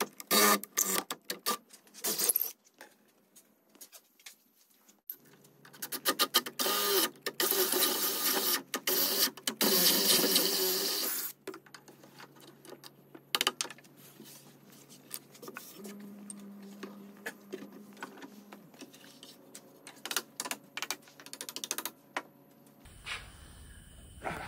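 Cordless drill boring holes into the hardwood of a table frame: several short spurts of drilling in the first couple of seconds, then one long run of about six seconds. After that come quieter clicks and knocks of handling.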